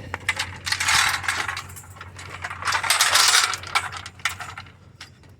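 Small pieces of scrap metal clinking and rattling as they are handled, in quick runs of light metallic clicks that die away near the end.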